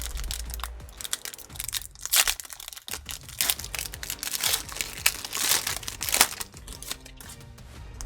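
The wrapper of a football trading card pack being torn open and crinkled by hand: irregular crackling rustles in several bursts, loudest near the middle.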